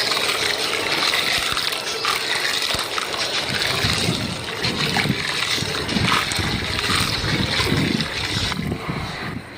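Wet black gritty sand crumbling and dropping into water: continuous splashing and trickling, with repeated soft low plops from about three and a half seconds in.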